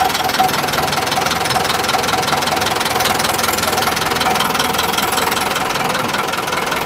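Sonalika DI 750 III tractor's four-cylinder diesel engine running at a steady speed, heard close up at the fuel injection pump with its diesel clatter.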